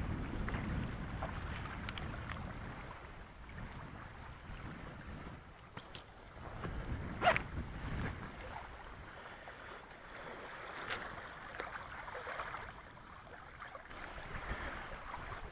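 Small wind-driven waves lapping on a stony lakeshore, with wind buffeting the microphone, strongest in the first few seconds. A few faint clicks and one sharper splash about seven seconds in, as a landed trout is brought into the shallows at the water's edge.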